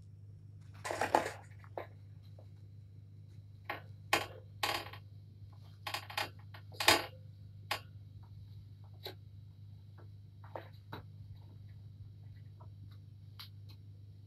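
Kittens playing on a pad-covered floor: scattered bursts of rustling and scrabbling, the loudest about a second in and near seven seconds, over a steady low hum.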